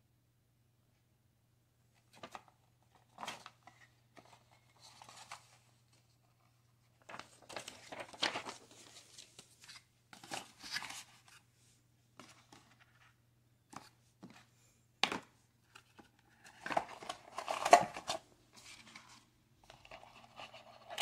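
Cardboard packaging and a paper leaflet being handled: irregular rustling, scraping and light taps in short bursts, loudest about three-quarters of the way through.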